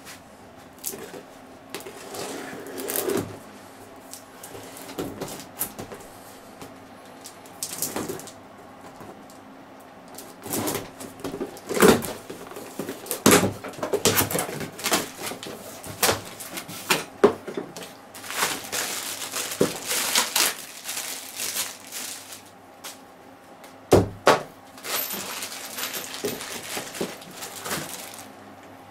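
Cardboard packaging of a studio monitor being handled and opened by hand: scattered knocks and scrapes of the boxes and flaps, with two longer stretches of rustling and tearing in the second half.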